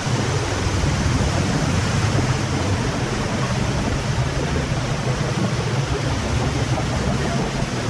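Rapids-ride raft riding up its conveyor lift hill: a steady low rumble from the lift under a constant hiss of water spray and running water.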